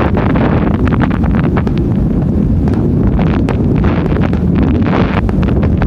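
Aerial fireworks shells bursting, a run of sharp reports and crackle, under heavy wind rumbling on the smartphone's microphone.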